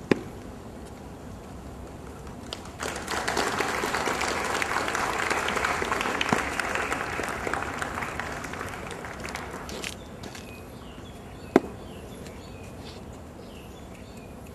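Crowd applauding, starting about three seconds in and dying away near ten seconds. A single sharp knock comes about a second and a half later.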